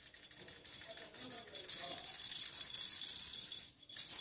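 Plastic baby rattle shaken rapidly, giving a quick, steady, high-pitched rattling that stops briefly near the end.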